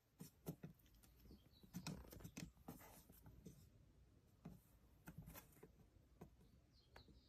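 Near silence, with faint, irregular small clicks and taps and a few brief high notes about a second and a half in and again near the end.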